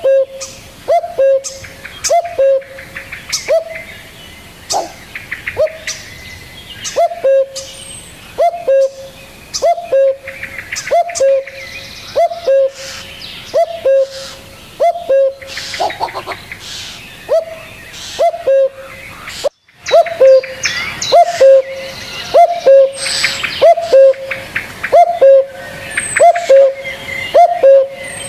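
Birds calling: a low, short call repeated steadily one to two times a second, over busy higher chirps and trills, with a brief break about two-thirds of the way through.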